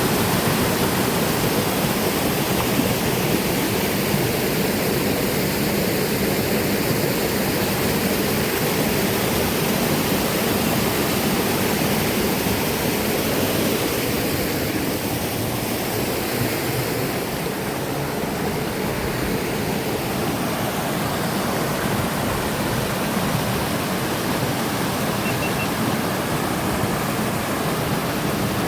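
Mountain river rushing steadily over small waterfalls and into pools.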